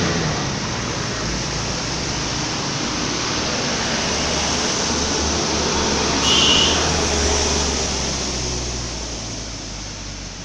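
A bus going by: steady engine rumble and road noise that fades near the end, with a short high beep about six and a half seconds in.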